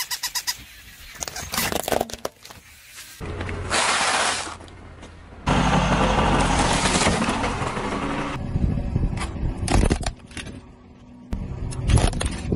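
Car tyres rolling onto and crushing objects on asphalt in a run of short clips: crunching and cracking with tyre and low engine noise. The sound changes abruptly several times as the clips cut.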